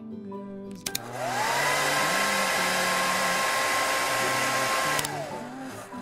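Small hair dryer clicked on about a second in, its whine rising to a steady pitch and running about four seconds, then winding down near the end, blowing the water off the bathed toys.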